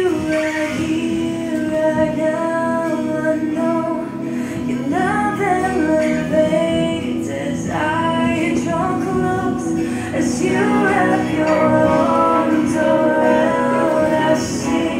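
Recorded worship song playing: a sung vocal line of long held notes in several phrases over a steady accompaniment.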